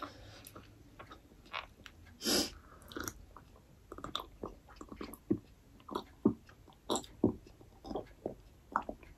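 A person drinking from a glass close to the microphone: a sip about two seconds in, then a run of soft gulping swallows, about two a second.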